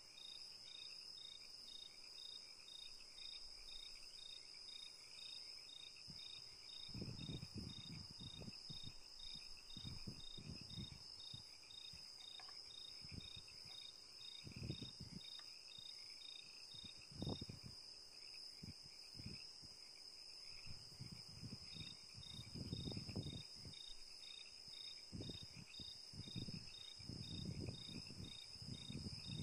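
A palette knife and a wooden scraper mix and spread a powder-and-lacquer putty on a wooden board. The strokes come as soft, irregular scrapes and smears from about seven seconds in. Under them runs a steady high cricket trill with evenly spaced chirps.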